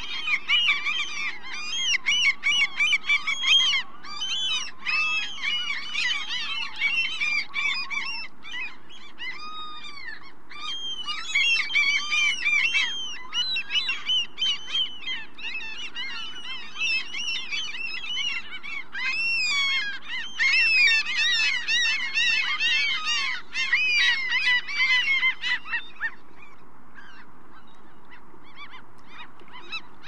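A flock of gulls calling over one another in many overlapping cries, over a steady wash of sea noise. The calls stop about four seconds before the end, leaving only the sea.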